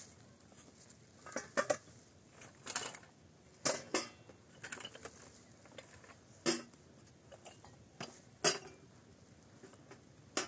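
Cooking utensils and dishes clinking and knocking, about seven separate sharp knocks spread unevenly over a few seconds.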